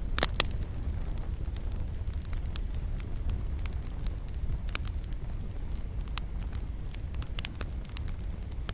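Wood fire crackling in a fireplace: a steady low rumble of burning with irregular sharp pops and snaps, the loudest pair just after the start.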